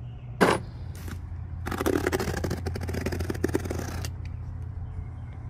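Box cutter slicing open the packing tape and cardboard of a parcel: a rasping scrape lasting about two seconds, after a single knock, over a steady low hum.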